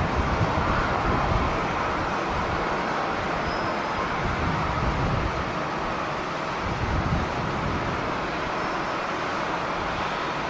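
Strong wind buffeting the microphone in uneven low gusts, heaviest near the start, over a steady rushing background of airport noise.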